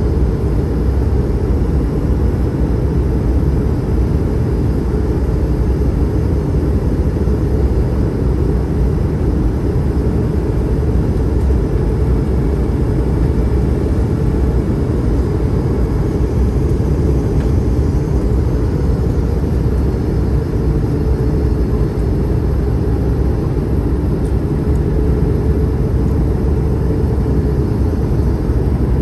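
Steady low rumble of airflow and engine noise inside the cabin of an Airbus A220-300 on final approach, heard from a window seat beside the wing-mounted Pratt & Whitney PW1500G geared turbofan.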